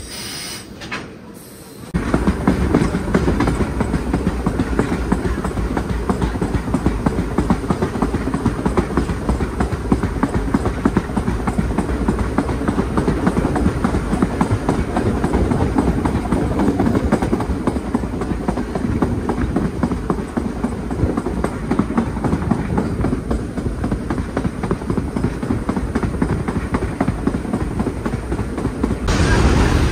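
Vintage New York City subway train running along the track, heard from an open window of the moving car: a loud, steady rumble of the wheels on the rails with a dense run of rattles. It starts about two seconds in, after a quieter moment, and changes just before the end.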